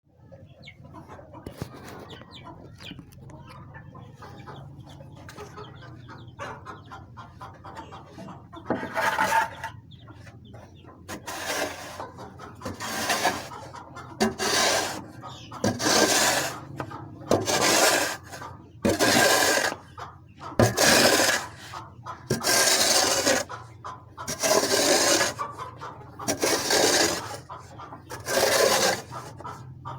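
Hens clucking, with loud scraping strokes starting about nine seconds in and repeating roughly once every one to two seconds.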